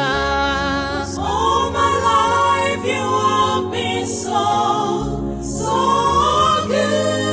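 Gospel worship music: long, drawn-out wordless sung notes that glide in pitch, over steady held accompaniment chords.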